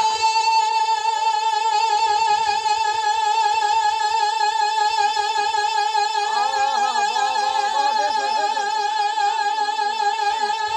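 Male naat reciter holding a single long, high sung note with vibrato through a PA system, sustained for about eleven seconds without a breath. About six seconds in, other voices rise and fall underneath it for a few seconds.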